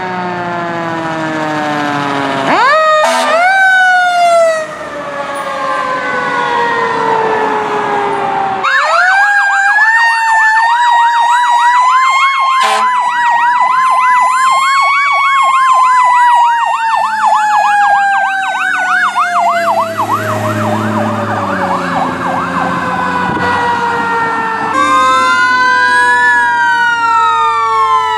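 Fire truck sirens. A siren winds slowly down, then spins back up. After a cut, a fast yelp runs over a slow wail that gradually falls. Near the end, after another cut, two wailing sirens sweep up and down across each other.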